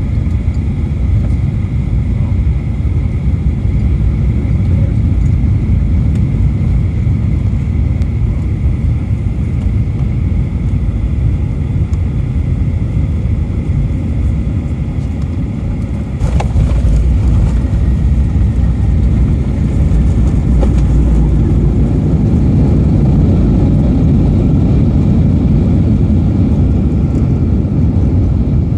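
Steady roar of a Boeing 737's engines and airflow heard inside the cabin on final approach. About halfway through comes a sudden thump of the touchdown, and the roar grows louder as reverse thrust and braking slow the jet on the runway.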